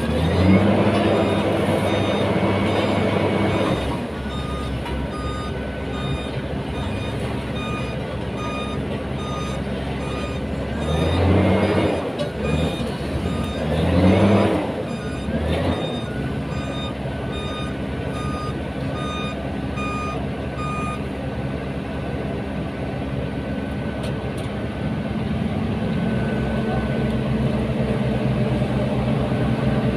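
Diesel engine of an asphalt paver running steadily, with a construction machine's reversing alarm beeping at an even pace through much of the middle. Two louder swells of engine noise with shifting pitch come near the middle.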